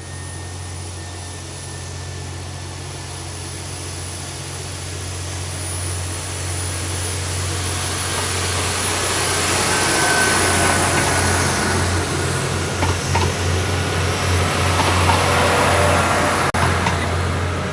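PESA ATR 220 diesel multiple unit passing close by: a steady low diesel drone with the rush of wheels on the rails. It grows steadily louder and is loudest in the second half.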